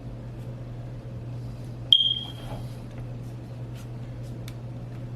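A single sharp metallic click with a short high ring that fades quickly, about two seconds in, from handling the torch lighter, followed by a few faint ticks, over a steady low electrical hum.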